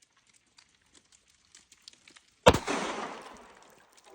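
A single shot from a Glock 44 .22 LR pistol about two and a half seconds in, a sharp crack followed by a noisy tail that fades over about a second and a half, after faint handling clicks.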